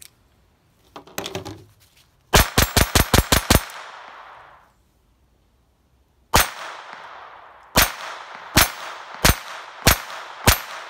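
Astra Cub .22 Short pocket pistol firing: first a fast string of about seven shots in just over a second, then after a pause six single shots about one a second, each shot followed by a fading echo.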